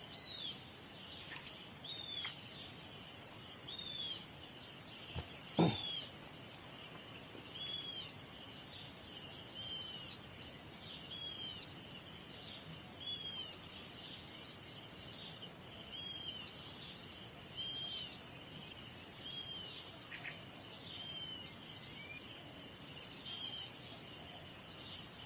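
Outdoor nature ambience: a steady high-pitched insect drone, with a bird repeating a short arched call about once a second. One brief sharp click about five and a half seconds in.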